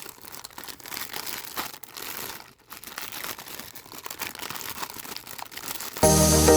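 Packaging being handled and opened: irregular crinkling, rustling and tearing with small clicks. Background music comes in suddenly near the end.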